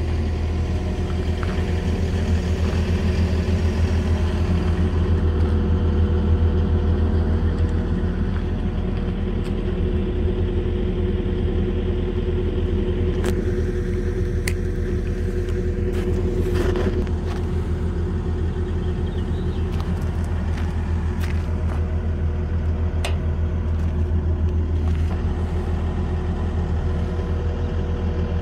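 John Deere 135D excavator's diesel engine running steadily at a constant speed, with a few faint clicks about halfway through.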